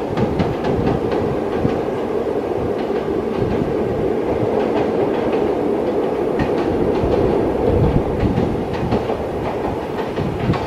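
Freight train passing, its wagons' wheels clacking over the rail joints again and again over a steady rolling rumble.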